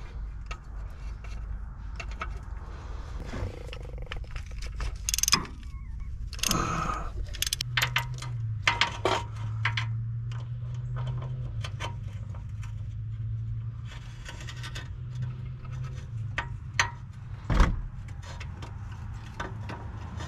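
Metal hand tools and suspension parts clinking, clicking and scraping as a mechanic works by hand on a car's front suspension and CV axle, with a sharp metallic knock near the end. A low steady hum runs through the middle.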